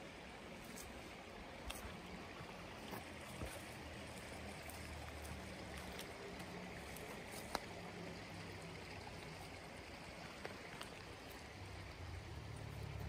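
Steady rush of a small stream's running water, with a few faint sharp clicks over it, one louder about halfway through.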